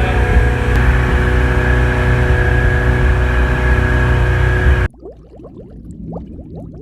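Boat engine running steadily with a heavy low rumble and a constant hum. It cuts off abruptly about five seconds in, leaving much quieter faint sounds.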